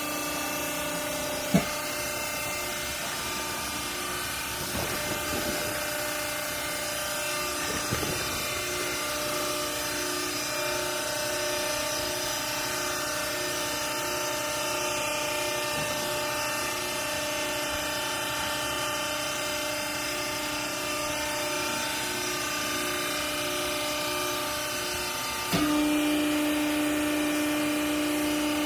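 Hydraulic baler's electric motor and pump running with a steady whine. A sharp knock comes about a second and a half in, and near the end the hum jumps suddenly to a louder, stronger tone.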